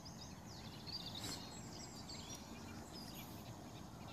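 Small birds chirping and singing in quick high notes over a faint steady outdoor background hiss.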